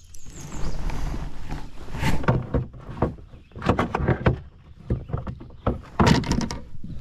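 Irregular knocks and thumps against a kayak, coming in clusters about two, four and six seconds in.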